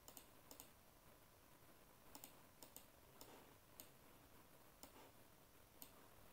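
Faint computer mouse clicks over near silence: about eight single clicks at uneven intervals, two of them close together a little over two seconds in.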